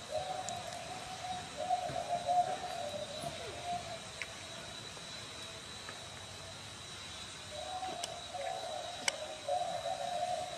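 Low cooing animal calls in two bouts, the second starting about eight seconds in, over a faint steady high-pitched whine and a few light clicks.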